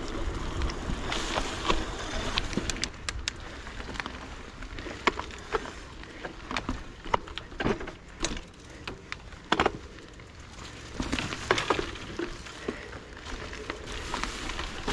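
Mountain bike moving over a rough bush track: irregular clicks, knocks and crackles from the tyres on gravel and sticks and from the bike rattling.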